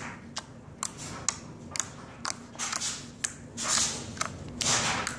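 Pink glossy slime being pressed and poked by hand, making a run of sharp wet clicks and pops, with two longer squelches in the second half.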